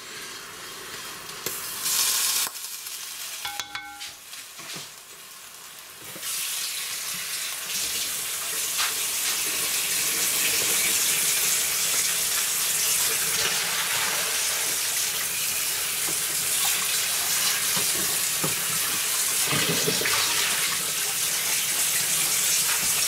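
Water sloshed in a cast-iron roaster and a short beep. From about six seconds in, a tap runs steadily as the roaster is rinsed out.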